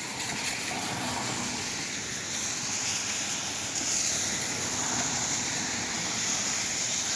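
Downtown street ambience in heavy rain: a steady hiss of rain and traffic on wet pavement, growing louder about halfway through.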